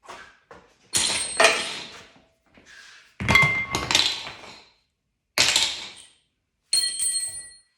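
Metal tools handled and set down on a hard surface: four separate clunks and clinks, the second and fourth ringing briefly.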